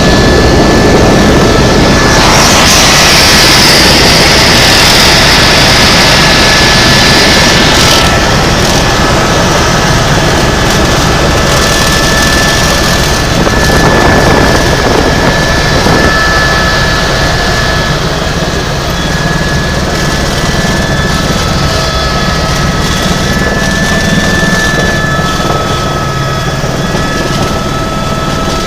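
Tour helicopter in flight, heard from inside the cabin: a loud, steady rush of rotor and engine noise with a low, fast rotor throb and a steady high turbine whine. The high hiss eases slightly about eight seconds in.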